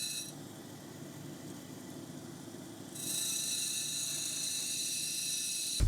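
Lapidary grinding machine running, with a steady high-pitched whine over a low rumble; the whine drops away about half a second in and comes back about three seconds in, as the stone is taken off and put back to the wheel.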